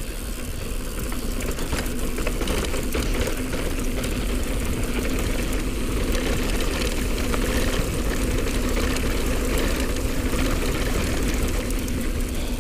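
Mountain bike descending a dirt trail: wind rushing over the on-bike camera's microphone and tyres rolling on dirt, with a steady buzzing hum running underneath.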